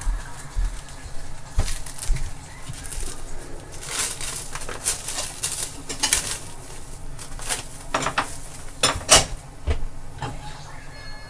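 Irregular clinks and clatter of kitchen dishes and utensils being handled, with the loudest knocks about nine seconds in.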